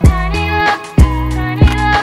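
Background music with a steady drum beat over bass and held melodic notes.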